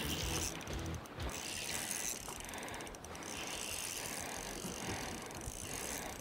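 Spinning fishing reel being cranked as a hooked fish is reeled in, its gears whirring with brief pauses.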